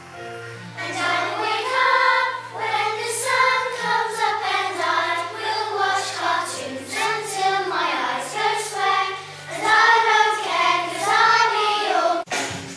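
A group of children singing a song together, with sustained low accompaniment notes underneath.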